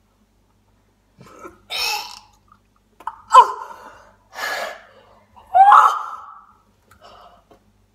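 Young boys gasping and coughing in four short outbursts, two of them loud voiced cries, reacting to the strong taste on the tongue of what they have just eaten.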